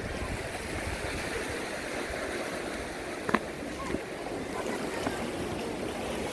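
Sea surf washing against a rocky shore, a steady rushing noise, with a single sharp click about three seconds in.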